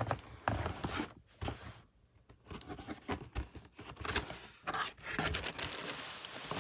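Cardboard shoebox packaging being handled: irregular scraping and rustling, with a short pause about two seconds in and denser rustling toward the end.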